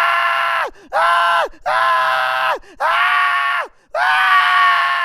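A man screaming: five high-pitched held screams in a row, each lasting well under a second and falling in pitch as it breaks off.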